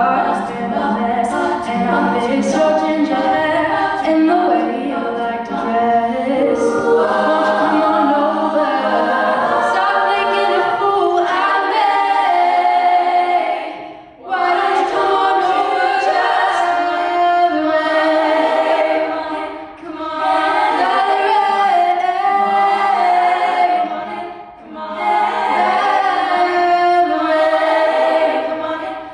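A cappella vocal ensemble singing in harmony without instruments, with short breaks between phrases.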